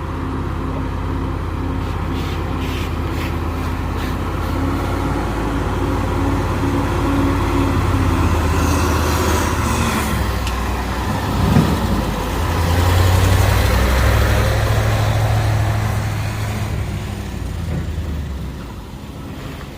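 A heavy vehicle's engine pulling slowly up a steep hill climb. It grows louder as it passes close, a little past halfway through, then fades away. One short sharp knock comes just before it is loudest.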